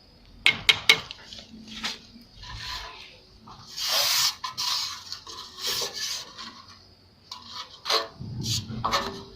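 Plastering trowel scraping and rubbing across wet cement render on a wall, in a series of rasping strokes, with three sharp taps a little under a second in.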